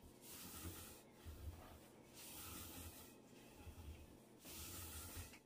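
Soft rubbing strokes, three of them each about a second long and roughly two seconds apart, with fainter rubbing between.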